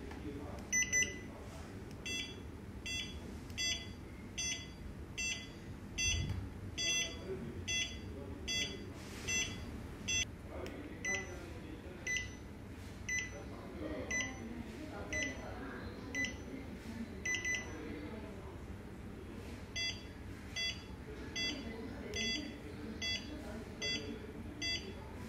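Short electronic pairing beeps from a LIVALL helmet and PikaBoost 2 setup, repeating at about two a second with a brief pause near the three-quarter mark. The beeping signals that the connection is waiting to be confirmed with the power button.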